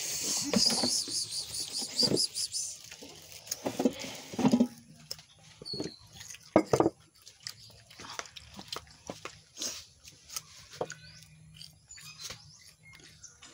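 Animal calls in the first seven seconds, with a fast run of high chirps over the first two and a half seconds; after that, scattered faint clicks and scrapes.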